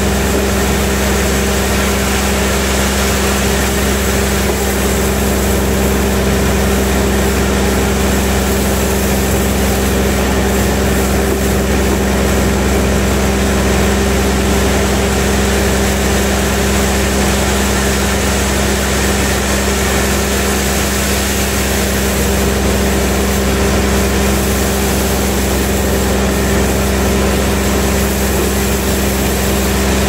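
Large band sawmill running with a constant, steady mechanical hum and low rumble.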